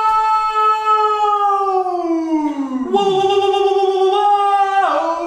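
Men's voices howling in long drawn-out notes. One note is held, then slides down in pitch about two and a half seconds in. A new held note follows and steps lower near the end.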